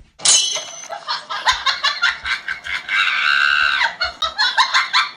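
High-pitched cackling laughter in quick, repeated short bursts, with one longer held note about three seconds in.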